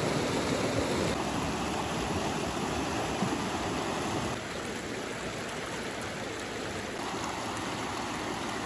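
Fast, shallow mountain creek rushing over a rocky bed: a steady rush of water that steps down slightly in level about a second in and again at about four seconds.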